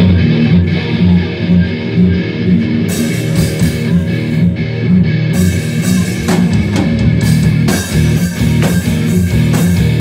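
Live rock band playing: electric guitars over bass guitar and drums, loud and steady, with sharper drum and cymbal hits from about three seconds in.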